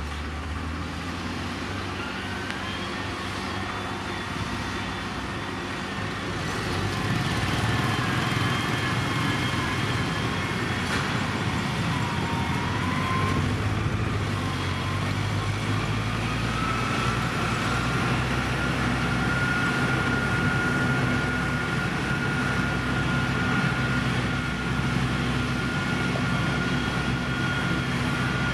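Diesel engine of heavy road-construction machinery running under load, with a high whine over the engine that wavers in pitch at first and then holds steady. The engine gets louder about six or seven seconds in.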